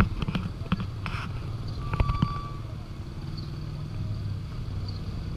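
Street traffic: a steady low rumble of car and motorcycle engines, with a few sharp knocks near the start and about two seconds in.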